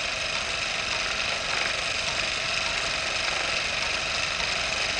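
Steady mechanical whirring of a small motor, unchanging throughout.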